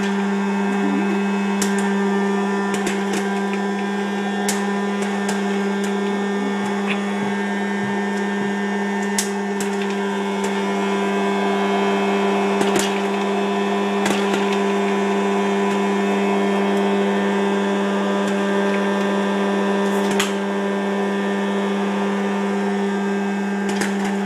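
Electric hot-air popcorn popper running, its fan and heater giving a loud, steady hum. Scattered sharp pops come every few seconds as kernels pop and are blown out into the bowl.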